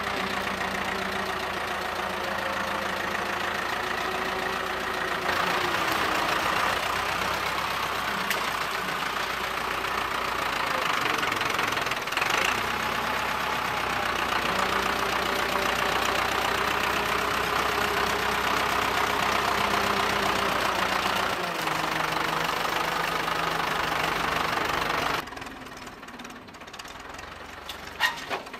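Farm tractor's diesel engine running hard as the front loader works, its speed rising and falling several times. About 25 s in the sound drops suddenly to a quieter, more distant engine, with a couple of sharp knocks near the end.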